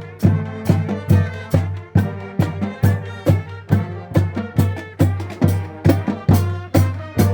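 Marching band playing wind and brass instruments over drums that keep a steady beat, a little over two strokes a second.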